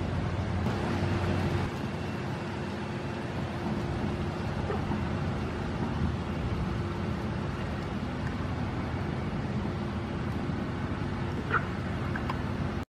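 Steady low background rumble with a droning hum, and a brief high chirp or two about eleven seconds in; the sound cuts off abruptly near the end.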